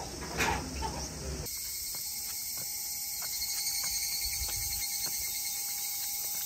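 A brief rustling sound in the first second and a half, then a steady high insect buzz with scattered faint clicks.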